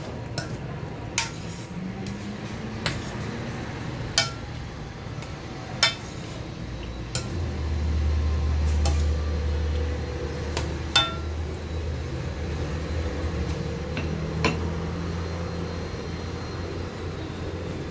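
Metal spoon stirring minced pork and diced vegetables in a stainless steel pan, scraping and clinking with sharp knocks against the pan every second or two. From about seven seconds in, a low rumble rises underneath and holds.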